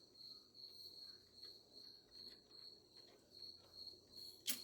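Faint, steady cricket chirping, an even high pulse about two to three times a second. A few faint small clicks, and one sharp click near the end.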